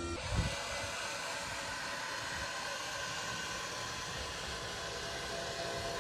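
Electric actuator of a powered engine hatch whirring steadily as the hatch lowers, with a low thump about half a second in.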